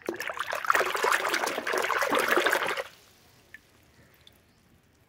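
A hand swishing and splashing a plastic toy through a plastic basin of muddy water for about three seconds, stopping suddenly, then a couple of faint drips as the toy is lifted out.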